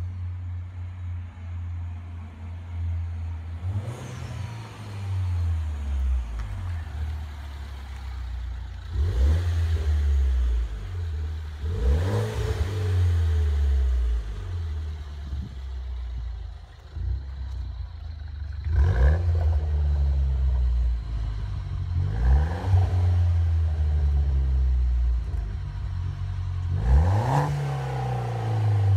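BMW F21 with a custom Akrapović exhaust, its engine running at a low steady idle and revved about six times, each rev rising and falling back to idle.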